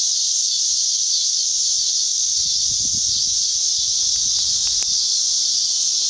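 Steady, high-pitched drone of an outdoor insect chorus. A brief low rumble of the camera being handled comes about two and a half seconds in.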